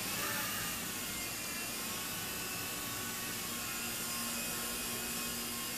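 Small radio-controlled helicopter hovering indoors: a steady whir of its motor and spinning rotor blades, with a faint whine that holds a constant pitch.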